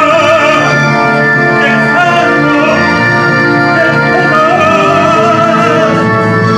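A man singing an operatic aria with wide vibrato into a handheld microphone, over a sustained orchestral-style accompaniment played through a speaker.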